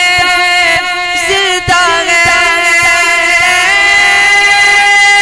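Male voice singing a devotional nasheed with a melodic, chant-like line, then a long held note from about three and a half seconds in.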